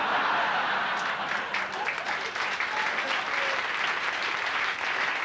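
Comedy club audience applauding after a punchline, the clapping breaking out suddenly and keeping up steadily.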